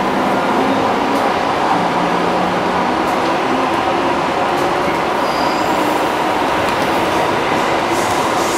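Running noise inside a JR 209-series commuter train car underway: a steady rumble of wheels on rail, with a few faint humming tones over it.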